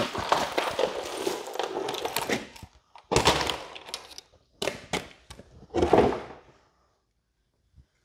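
Whole yellow croakers being turned over by hand in their box: a run of sliding, rustling handling noise with short thuds, in several bursts that stop about six and a half seconds in.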